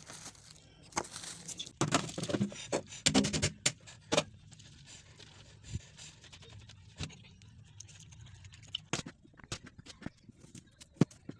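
Scraping, rustling and light knocks, dense for the first few seconds, then only scattered single clicks.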